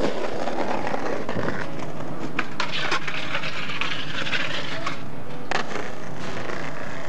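Skateboard rolling and grinding along a concrete ledge, with a sharp knock about five seconds in as it comes off, over a music track.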